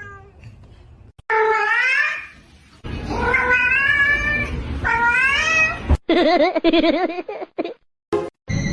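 A cat meowing: three drawn-out meows that bend in pitch, then a wavering, warbling call about six seconds in. The sound cuts off abruptly between calls.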